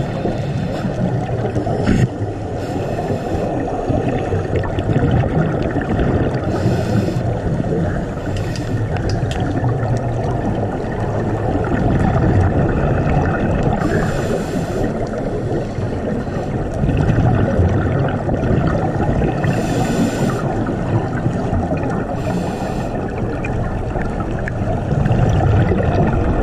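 Underwater ambience through a diving camera's housing: a steady low rush of water, broken every few seconds by about a second of hissing bubbles from a diver's exhalations.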